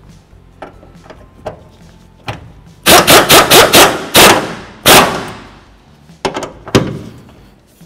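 An impact wrench hammers a bolt tight through a socket and long extension at the engine mount. After a few light clicks of the socket going on, it runs in quick rattling bursts for about two seconds, then fires two short bursts near the end.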